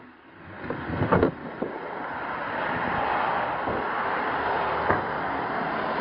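Steady rushing road noise that builds over the first two seconds and then holds. A few short knocks sound over it, the loudest about a second in.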